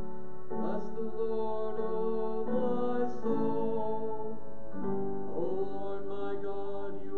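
Piano playing slow, held chords that change every second or two.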